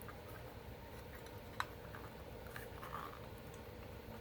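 Faint handling of an older Notifier fire alarm pull station, with one sharp click about a second and a half in and a few softer ticks after it.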